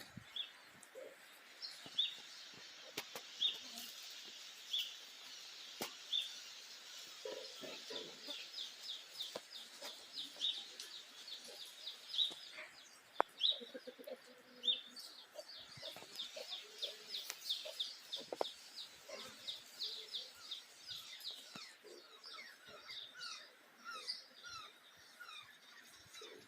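Birds calling: short high chirps repeated every second or so at first, then running into fast rhythmic series of notes, with lower clucking calls mixed in now and then.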